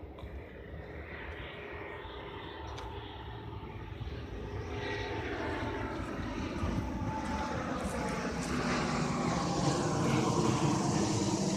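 Aircraft flying over, its engine noise growing steadily louder, with tones that slowly fall in pitch.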